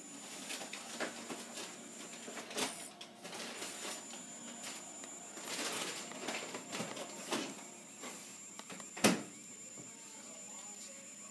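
3D pen running as it extrudes plastic filament: a steady high whine from its motor, pausing for about a second near two and a half seconds in, with light clicks and scrapes of the nozzle on a paper plate. One sharp click about nine seconds in is the loudest sound.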